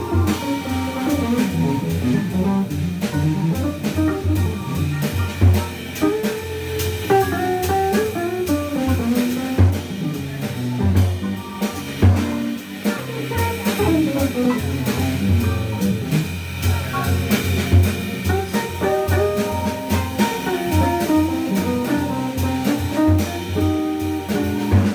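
A jazz organ trio playing a swing tune. A hollow-body electric guitar plays single-note melodic lines over a steadily pulsing organ bass line and a drum kit with cymbals.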